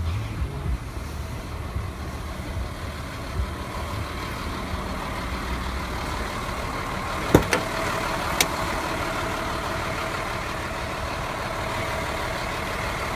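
Tow truck engine idling steadily. Two sharp knocks about a second apart a little past the middle.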